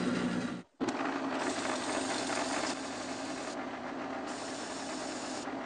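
Sandpaper rubbing on a wooden dowel, sanding it down because it is too tight for the discs meant to fit on it. The steady rasping breaks off briefly under a second in, then runs on with a low hum underneath, getting louder twice.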